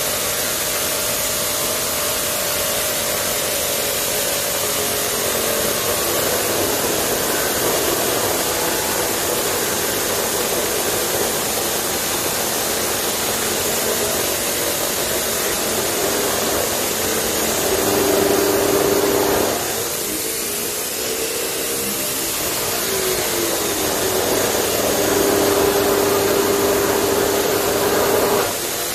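Ozito abrasive cut-off saw (drop saw) running and grinding through metal, a steady motor whine under a harsh grinding hiss. The motor's pitch dips and recovers about two-thirds in, and the grinding falls off sharply twice, there and again just before the end.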